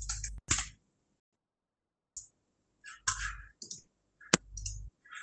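Irregular clicks, taps and bumps of a laptop being handled and worked, heard over a video-call link, in short separate bursts with dead silence between them. One sharp click comes about four seconds in.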